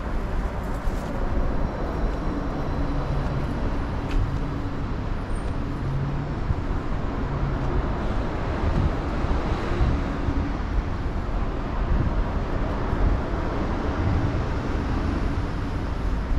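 City street traffic: motor vehicles driving past in a steady wash of road noise, with engines briefly humming through it.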